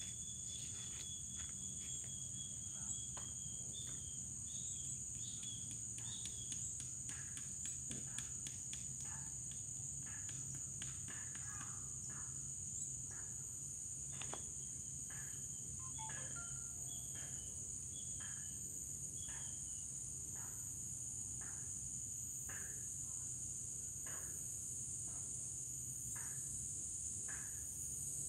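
Steady high-pitched drone of insects, with short chirps repeating about once a second through it.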